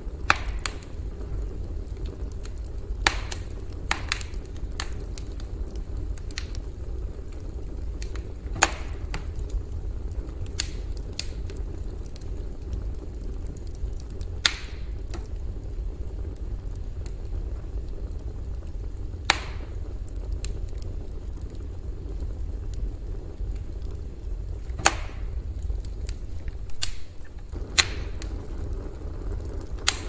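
Campfire burning: a steady low rumble with sharp crackles and pops from the burning wood every few seconds, at irregular intervals.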